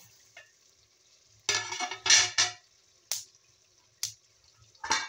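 Metal clattering against a large aluminium cooking pot: a loud scraping clatter about a second and a half in, then three sharp knocks roughly a second apart.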